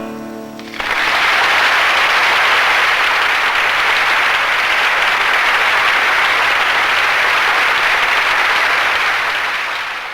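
The last acoustic guitar chord rings out briefly. About a second in, an audience breaks into loud, steady applause, which fades near the end.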